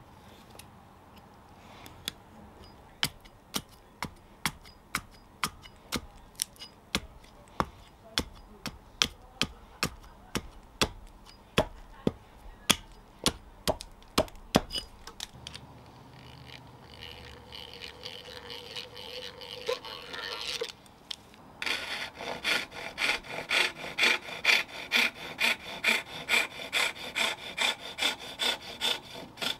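A hatchet chopping into a nectarine-wood fork blank in light, sharp strokes, about two a second. Then a few seconds of drilling the gullets between the tines, and from there a saw cutting the tines in quick, regular strokes.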